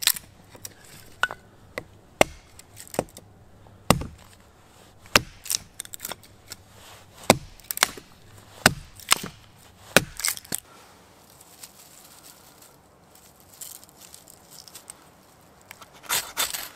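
Hatchet biting into wood: a run of sharp wooden chops and knocks at irregular spacing, about one or two a second, which stop about ten seconds in. Near the end comes a short rasping scrape from a fire steel struck over wood shavings.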